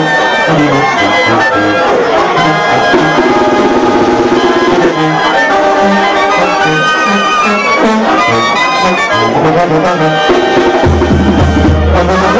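Brass band playing dance music, with trumpets and trombones over a steady repeating bass line; a long low bass note is held near the end.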